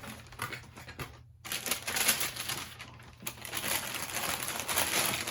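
Packaging paper and box being handled: crinkling and rustling in uneven bursts, busier after the first second and a half, breaking off briefly twice.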